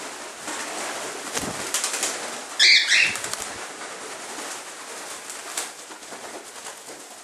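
Cockatiels flapping their wings, a dense fluttering rustle that slowly fades, with one short, loud, shrill cockatiel call about two and a half seconds in.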